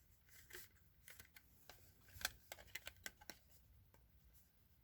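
Faint, scattered clicks and scrapes of a Mastercraft smoke alarm's plastic housing being handled and pried at to get the cover open, with one slightly louder click a little past two seconds in.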